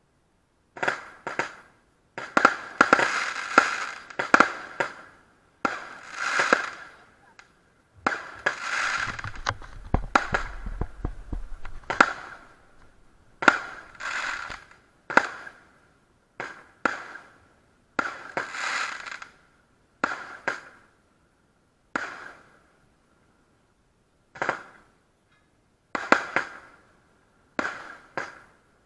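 Consumer F2 fireworks going off one after another: sharp bangs, each trailing off quickly, packed close together in two dense runs early on and in the middle, then spaced a second or two apart.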